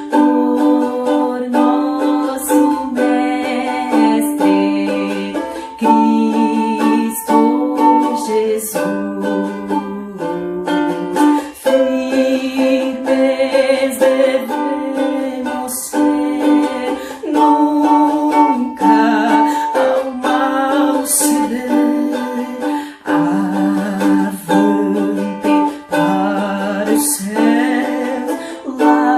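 Ukulele strummed in steady chords, playing a hymn tune.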